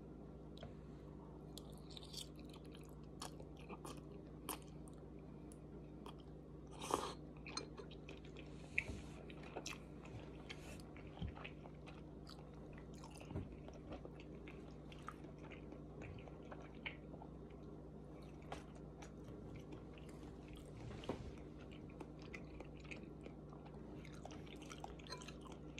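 A person chewing a mouthful of udon noodles, faint and close, with many small scattered mouth clicks throughout and a couple of slightly louder bursts about 7 and 21 seconds in.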